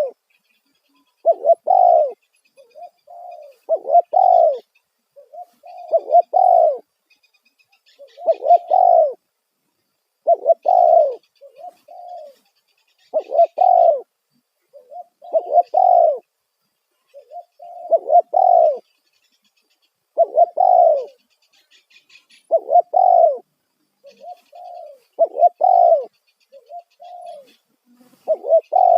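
Spotted dove (tekukur) giving its loud cooing call, the same phrase repeated about every two and a half seconds. Faint high chirping of small birds runs behind it.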